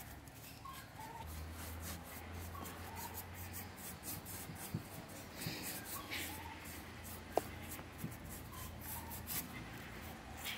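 Rusty iron chair frame being scrubbed by hand with a small scrubber: a run of short, scratchy rubbing strokes, over a low steady hum, with one sharp click about seven seconds in.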